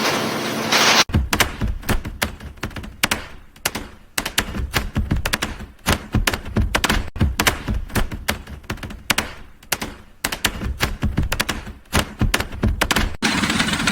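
Rapid, irregular clatter of sharp knocks and taps, with a steady machine hum before it starts about a second in and again when it stops near the end.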